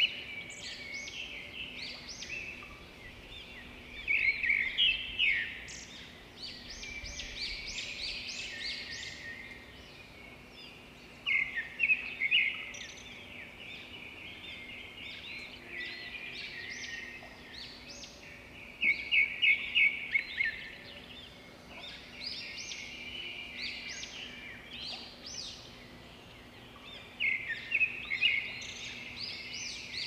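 Songbirds singing: a continuous chorus of chirps and trills, with a loud phrase of quick repeated notes coming about every seven seconds.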